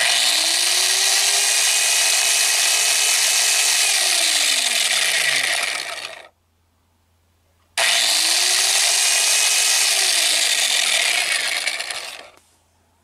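Mini food processor's small electric motor driving its plastic reduction gears with the casing open, run twice for a few seconds each. Each run starts with a hum that rises quickly in pitch, holds steady with a buzzy whir, then falls in pitch as it winds down.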